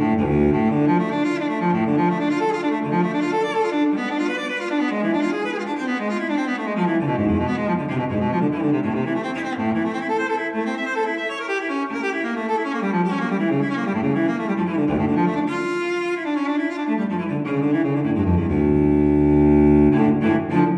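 Background music: a sad-sounding solo cello piece playing a line of shifting notes, with a long held low note near the end.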